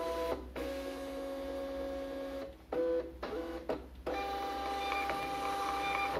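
Gprinter GP1324D direct thermal label printer's feed motor whining as it drives 4x6 label stock: a steady run of about two seconds, three short stop-start bursts, then a longer run at a different pitch as a printed shipping label feeds out.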